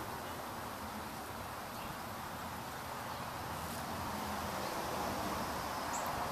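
Steady outdoor background ambience: a soft, even hiss with no distinct events.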